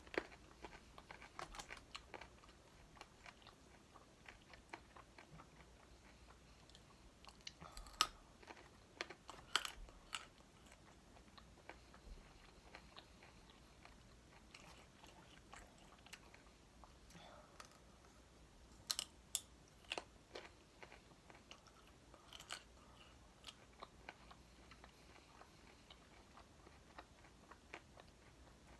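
A person chewing and biting crispy fried chicken wings, with scattered crunches and a few louder bites spaced out over the stretch.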